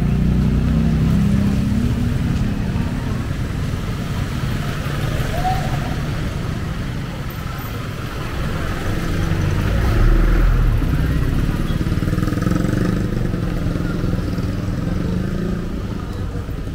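Street traffic on a wet road: a motorcycle tricycle's engine running close by at the start, then a small truck's engine rumbling past about ten seconds in, over a steady hiss.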